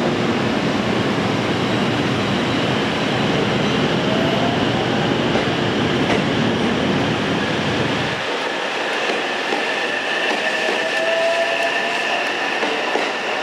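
Electric multiple-unit commuter train moving slowly along the platform, with a rising whine from its motors as it gathers speed and wheels clacking over the rail joints.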